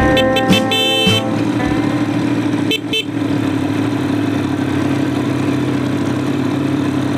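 Tekken 250 motorcycle engine running steadily at low speed on a gravel track.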